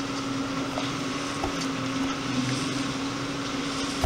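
Motorboat engine running at a steady pace, an even hum over the rush of water and wind. A sharp click comes at the very end.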